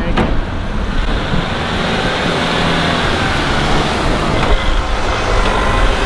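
Compact tractor's diesel engine running steadily under load while it back-drags snow with its plow, with a click near the start.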